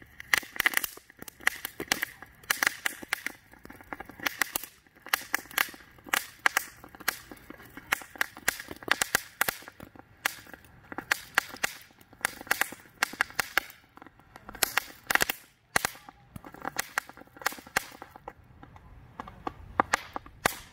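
Handheld crackling fountain firework tube spraying sparks, giving off a dense stream of sharp crackles and pops in irregular clusters. The crackles thin out near the end as the fountain burns down to smoke.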